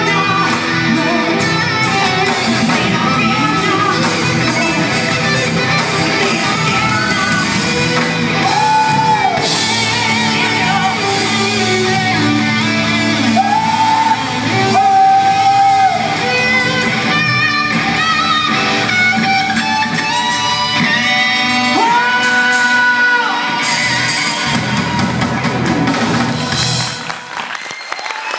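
Live rock band playing in a theatre hall: electric guitar, bass, drums and keyboards under a lead singer holding long sung notes. The music drops off sharply near the end.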